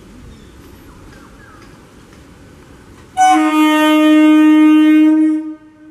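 Electric multiple unit local train's horn giving one steady, single-pitched blast of a little over two seconds, starting about three seconds in, over the low rumble of the train rolling in to the platform.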